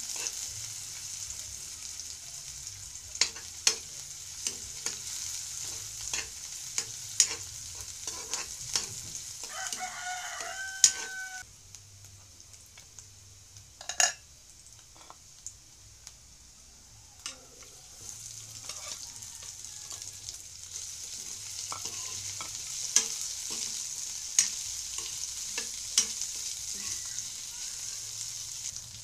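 Food sizzling in a steel wok on a gas burner while a metal spatula scrapes and clicks against the pan. A rooster crows once, about ten seconds in. The sizzle drops away for several seconds in the middle, then picks up again.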